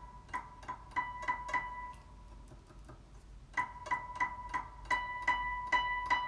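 A guzheng string plucked at its middle point as a harmonic, sounding the same clear, bell-like high note over and over: a run of about six quick plucks, a short pause, then about eight more.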